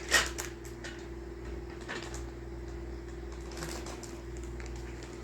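Small plastic model-kit parts in their bags being handled: a sharp click and rustle right at the start, then a few softer clicks and rustles. A steady low hum runs underneath.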